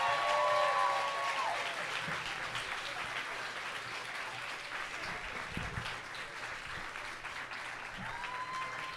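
Audience applauding, loudest at the start and easing off as it goes on.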